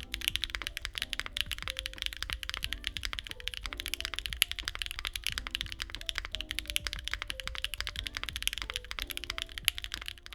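Fast, continuous typing on a mechanical keyboard fitted with Bsun Sea Fog tactile switches, a carbon fiber plate, no foam and GMK keycaps. The keystrokes sound sharp and full, leaning towards a medium clack. Soft background music plays underneath.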